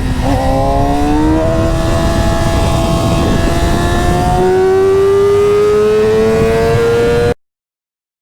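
Stock 2009 Yamaha R6's inline-four engine at high revs, its pitch climbing steadily as it accelerates, with a brief dip just after the start and a step up about four and a half seconds in. The sound cuts off suddenly near the end.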